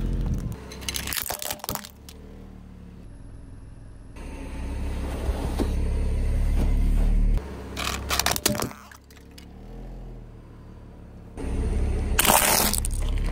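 A car tyre rolling slowly over and crushing a series of objects: crackling of a sealed plastic candy bag and its contents in the first two seconds, then a steady low tyre rumble as it presses into foam sponges, with a few cracks after. Near the end, brittle yellow tubes shatter under the tyre in the loudest burst of cracking.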